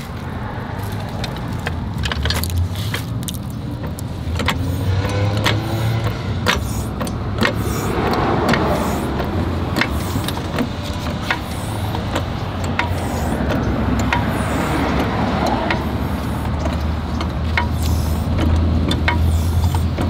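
A car jack being worked to lift the car: a string of short metallic clicks, about one a second, over a steady low hum.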